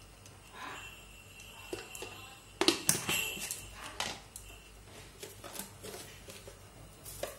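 Metal spoon clicking and knocking against an aluminium pressure cooker as turmeric is added to dal, with a cluster of sharp knocks between two and a half and three seconds in and another about four seconds in. A faint high steady tone sits behind the first half.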